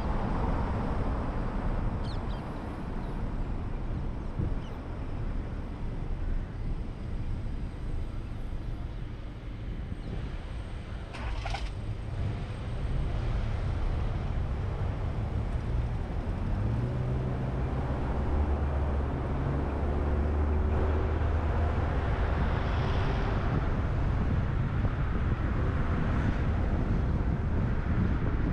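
Steady road and wind rumble from a car driving in city traffic. The rumble eases off for a moment about ten seconds in and builds again after, with a brief hiss about eleven seconds in and a low engine hum later on.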